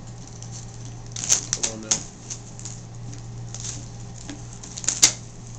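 Scissors snipping and working through the plastic shrink-wrap on a trading-card box: scattered sharp clicks and crisp crinkles, the loudest snip just after five seconds in.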